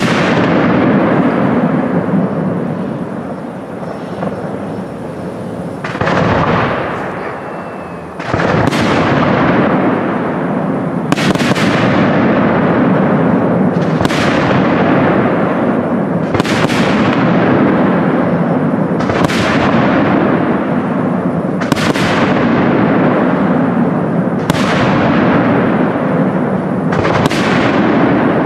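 Aerial firework shells bursting: a dense run of bangs over the first few seconds, then single sharp bangs evenly spaced about every two and a half seconds from about eight seconds in, each trailing off in a long echoing decay.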